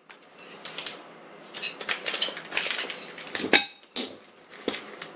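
Steel linear guide rail and carriage blocks being handled: irregular metal clinks and knocks among rustling plastic wrapping, the sharpest knock about three and a half seconds in.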